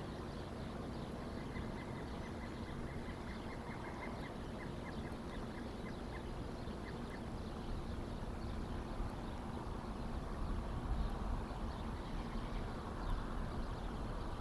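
A bird gives a string of short, evenly spaced calls, several a second, for about five seconds before falling silent. Under it runs a steady low outdoor rumble.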